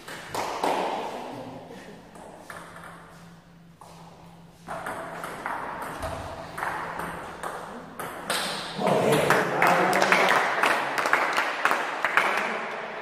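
Table tennis ball clicking off the paddles and table in a rally, a quick series of sharp pings. Louder mixed noise with voices fills the last few seconds.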